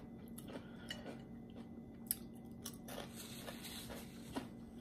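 Faint chewing and wet mouth clicks of a person eating, with a few small sharp ticks scattered through.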